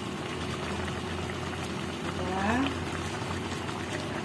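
Coconut-milk adobo sauce simmering and bubbling steadily in a nonstick frying pan as it reduces. A brief voice sounds once, about halfway through.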